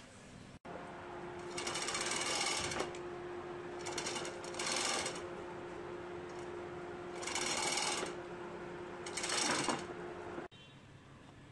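Four bursts of rapid mechanical rattling from a hand tool working on the engine, each about a second long, over a steady faint hum; the sound starts and stops abruptly at edit cuts.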